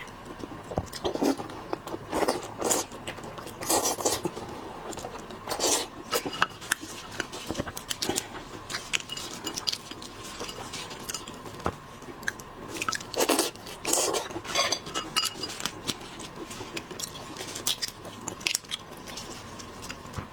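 Close-miked eating of seafood: irregular bites, crunches and wet chewing, with sharp clicks and cracks scattered through. A faint steady tone runs underneath.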